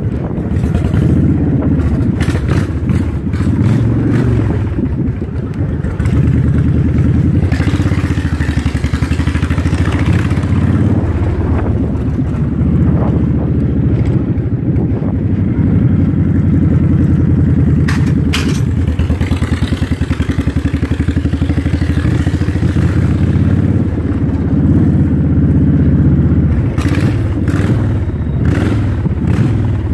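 Cruiser-style motorcycle engine running under way as the bike is ridden, with a steady low exhaust pulse that rises and eases a little as the throttle changes.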